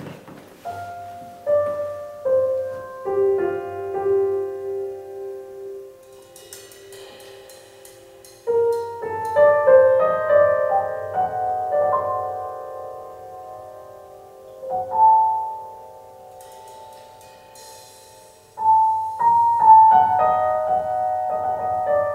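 Piano music played back through a pair of floor-standing loudspeakers in a bare, live-sounding listening room. It comes in three phrases, about a third of the way in and again near the end, each dying away before the next, with a few faint high percussion rattles between them.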